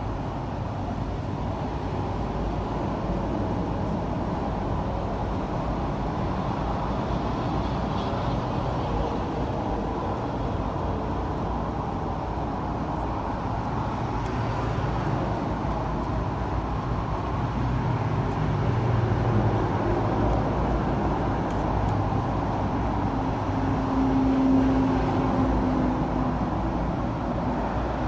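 Steady low background rumble, like distant road traffic, with a brief faint hum near the end.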